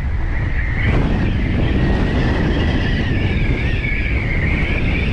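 Strong wind buffeting the microphone in a loud, steady rumble, with a high wavering whistle on top.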